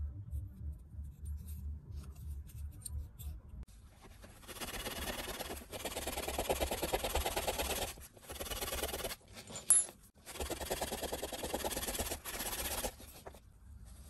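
Steel wool scrubbing rust off a steel pocket-knife part: a rapid back-and-forth rubbing scrape in two spells of a few seconds each, with a single sharp click between them. Quieter handling of the parts comes before the scrubbing.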